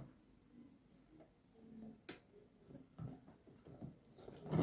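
Faint, sparse clicks and light handling noises of a small wire door being fitted onto a handmade bird trap, with a sharper click about two seconds in.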